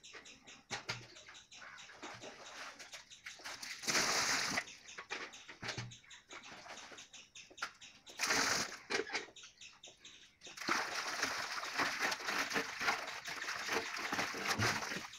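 Well water splashing into a steel basin: two short splashes as buckets are poured, then a longer stretch of splashing and sloshing as a hand stirs the water in the basin.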